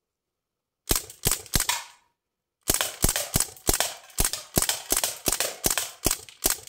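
CO2-powered BB gun firing shot after shot. Four quick shots come first, then after a short pause a steady string of about a dozen more, roughly three a second.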